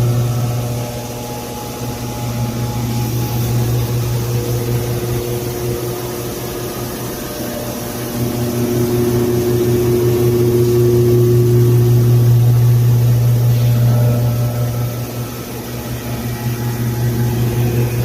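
Metal drilling-milling machine running under load, a steady low hum with a few steady tones above it. It grows louder in the middle and eases off for a moment near the end.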